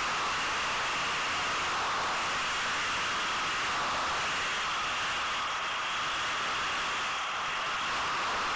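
Yamaha WR250 enduro motorcycle riding over a dirt track, its engine and wind on the camera microphone making a steady hiss.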